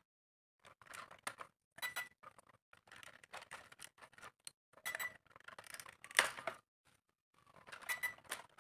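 Hard plastic clicking and rattling as the landing stands are pushed onto the frame of a toy quadcopter drone by hand, a few sharper clicks standing out among the small handling noises.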